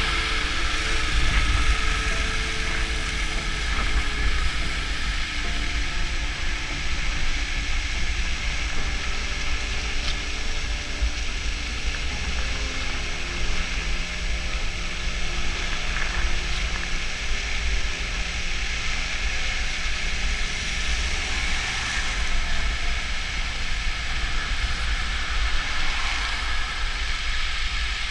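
Steady wind rumble on the microphone, with the engines of vehicles passing on the road.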